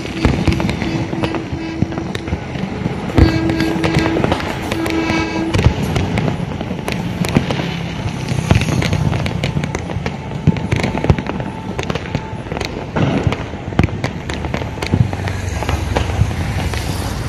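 Firecrackers and aerial fireworks going off, a constant string of sharp cracks and bangs, the loudest about three seconds in.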